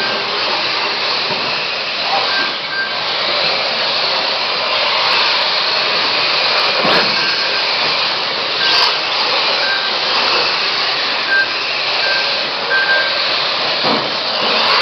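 Radio-controlled electric Mini touring cars racing: a steady whir of motors and tyres on the track, with short high whines coming and going as cars pass.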